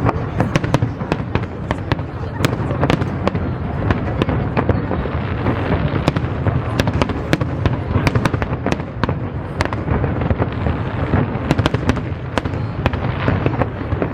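Aerial fireworks display: many sharp cracks and bangs in quick succession over a steady low rumble of shell bursts.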